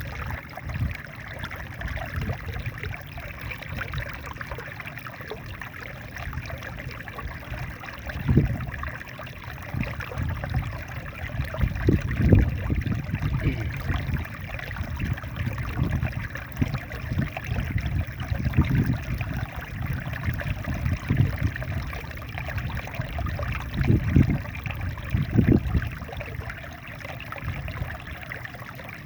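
Small waterfall in a rice field, water falling and splashing steadily, with irregular low rumbles underneath that swell several times.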